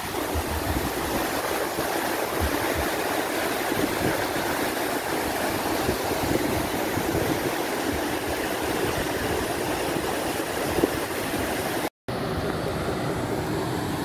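River water rushing steadily over rock ledges and rapids of a cascade, a continuous even rush with no change in level. The sound drops out for a split second near the end.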